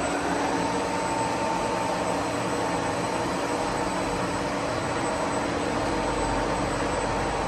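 Large Inaxes IKS 8300 R CNC lathe running with its drives powered up: a steady mechanical hum with a faint whine. A low rumble swells over the last second or two as the spindle and chuck start to turn.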